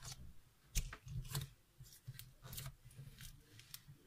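Blue glitter slime being squished and kneaded by hands, giving a series of short sticky clicks and pops about every half second.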